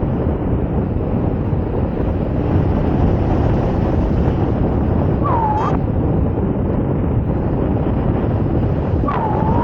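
Wind buffeting the microphone in paragliding flight: a loud, steady rushing noise. Two short tones, each dipping and then rising in pitch, sound about five seconds in and again near the end.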